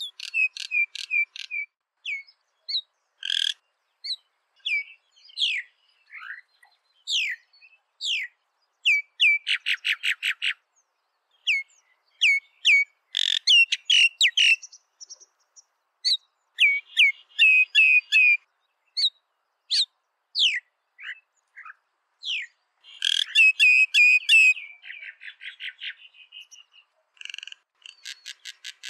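Common myna calling: a varied string of short whistles, gliding chirps and rapid chattering trills, delivered in phrases with brief pauses between them.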